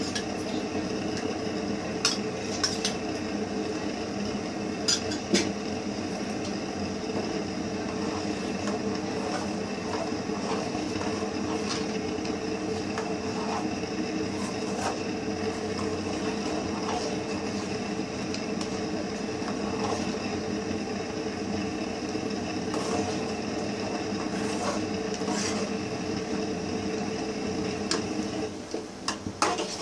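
Steel ladle stirring and scraping a steel pan of thick ragi mixture, with scattered sharp clinks of metal on metal. Underneath is a steady low rushing hum that dips shortly before the end.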